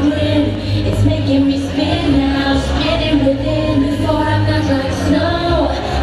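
Female vocalist singing into a microphone over a loud eurodance backing track with a heavy, steady bass, played through a club PA.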